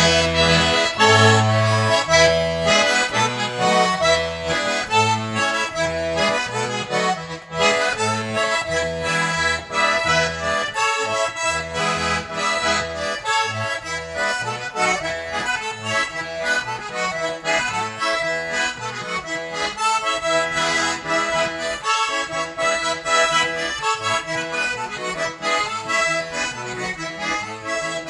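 Russian garmon played continuously: a melody on the right-hand buttons over a left-hand bass-and-chord accompaniment, the bellows sustaining the reeds.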